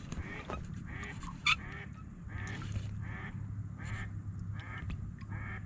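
Ducks quacking repeatedly, about two calls a second, with a low steady rumble underneath and one brief sharp click about a second and a half in.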